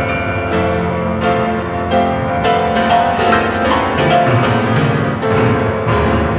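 Piano playing full chords, a new chord struck about every two-thirds of a second over low bass notes.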